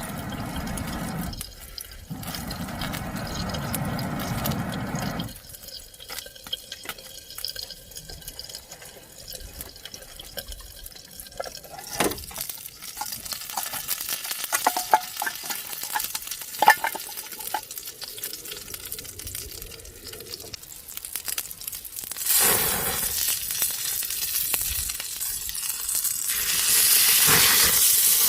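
Camp cooking sounds: a steady rush like water being poured for about five seconds, then scattered light clicks and taps of utensils. Near the end a loud steady hiss sets in.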